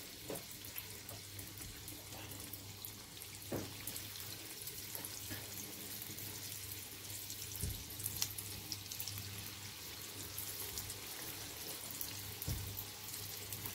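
Corn-flour fritter batter deep-frying in a saucepan of hot oil: a steady hiss with scattered crackles and small pops, over a steady low hum.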